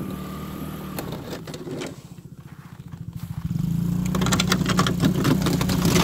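A 125cc utility ATV engine runs while the quad pushes a snow plow. About two seconds in it eases back to a slow, lower idle, then picks up and runs louder again from about three and a half seconds.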